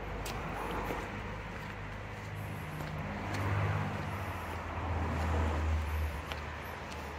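A car engine running nearby out of sight, its low hum swelling twice as it passes, with a few faint footsteps on cobblestones.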